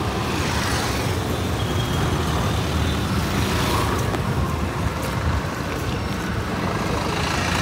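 Busy street traffic: a steady rumble of car and motor-scooter engines with vehicles passing close by.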